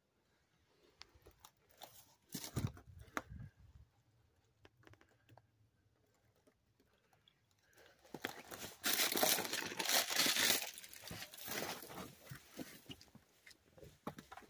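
Footsteps crunching on gravelly rock and dry desert brush scraping and crackling: a few scattered crunches early, then a dense, louder spell of crackling and rustling about eight seconds in that fades over the last few seconds.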